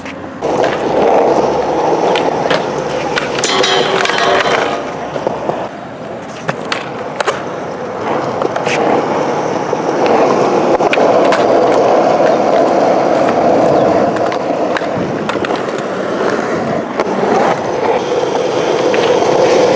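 Skateboard wheels rolling on concrete, with several sharp clacks of the board and a short scrape about three and a half seconds in.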